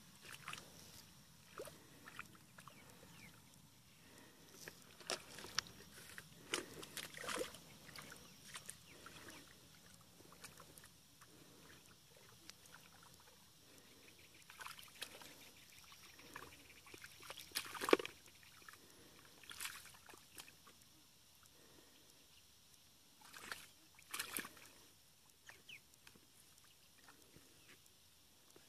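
Hands and feet squelching and sloshing in thick mud and shallow muddy water, groping by hand for fish. Scattered, irregular squelches and splashes, the loudest a little past halfway.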